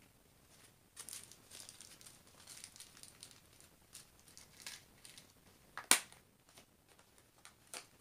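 A small plastic zip bag of diamond painting drills crinkling as it is handled, then a sharp click of the plastic storage container's lid snapping shut about six seconds in, with a softer click near the end.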